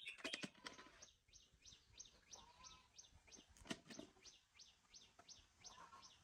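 A bird calling faintly with a steady run of short, high chirps that fall in pitch, about three a second, with a few knocks near the start and one a little past the middle.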